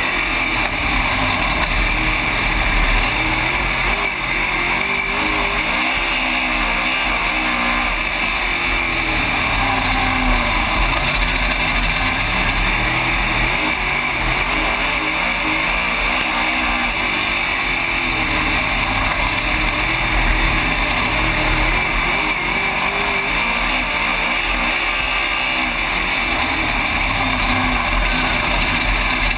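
Race car engine heard from inside the cockpit at racing speed, its pitch rising and falling again and again as the car accelerates and backs off around the laps.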